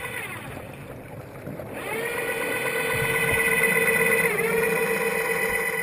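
Underwater diving scooter's electric motor and propeller whining, heard underwater. The whine fades out at the start, rises back up about two seconds in and holds steady, dipping briefly once later on.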